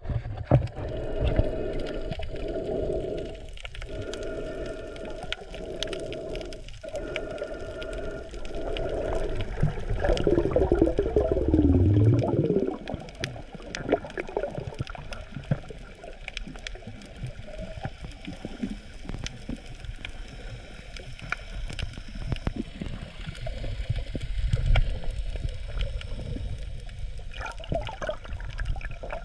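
Underwater sound picked up by a submerged camera: muffled water movement and gurgling, with scattered sharp clicks throughout. A louder swirling gurgle comes about ten seconds in.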